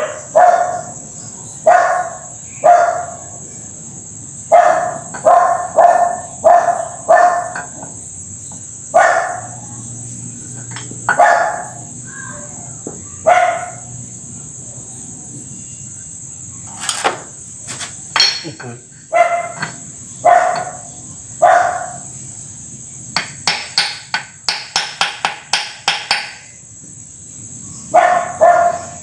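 A dog barking repeatedly in short single barks. About three-quarters of the way through comes a quick run of sharp metal taps, about three a second, from a hammer worked on the engine block.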